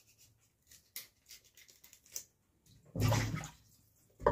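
A few light knife clicks on chicken feet being trimmed, then water splashing in a pot about three seconds in as the pieces go into the water.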